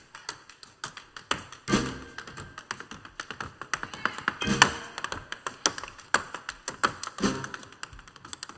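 Jazz tap dancing: tap shoes striking the floor in quick, uneven rhythmic runs of sharp clicks, with the accompanying band dropping in a short chord about every three seconds.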